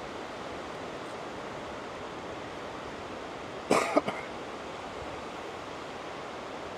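Steady wash of small surf breaking on a sandy beach. About halfway through a person gives a brief cough, two short bursts close together.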